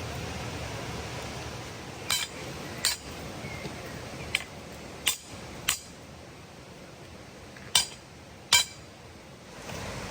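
Steady rushing noise of a waterfall, broken by about seven sharp clicks or knocks at irregular intervals, the last two the loudest; the rushing fades out near the end.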